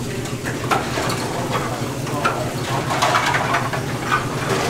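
Kitchen clatter: metal utensils and dishes clinking and scraping against pots in short, irregular knocks, over a steady low hum.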